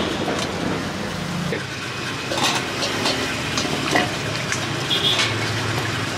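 Water sloshing and splashing as a peeled fruit is rinsed in a plastic strainer basket inside a stainless steel bowl of water, with a few light knocks.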